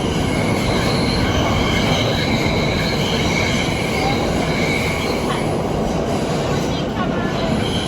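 New York City subway train running between stations, heard from inside the car: a steady rumble of wheels on track with high, wavering squeals from the wheels.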